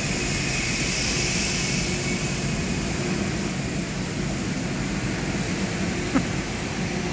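Steady rumbling noise of a car driving slowly off a ferry's vehicle deck, heard from inside the car, with one sharp knock about six seconds in.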